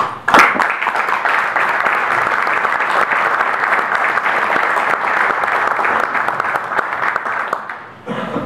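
Audience applauding: a few sharp claps at the start swell into steady, dense clapping, which dies away near the end.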